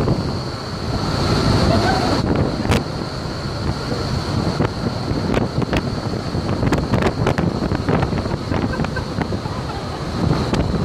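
Shipboard vertical wind tunnel for indoor skydiving: a steady loud rush of air from its fans, with a high whine held throughout and wind buffeting the microphone. Scattered sharp clicks through it.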